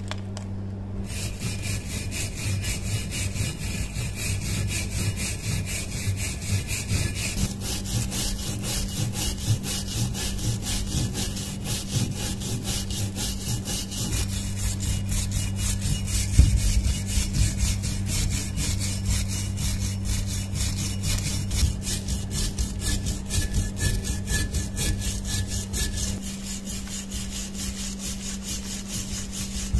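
Hand-held steel wire brush scrubbing flaking rust off a heavily rusted hammer head in rapid back-and-forth strokes, starting about a second in.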